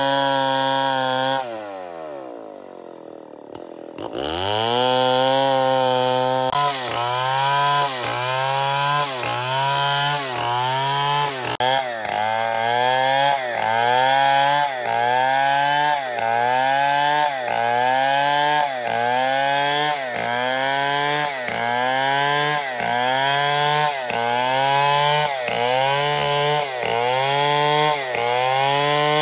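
Stihl 070 two-stroke chainsaw cutting merbau timber at full throttle. About a second and a half in, its revs fall away and the sound drops. Near four seconds it revs up again, and from there on the engine note dips and climbs back about once a second as the saw rips along the board.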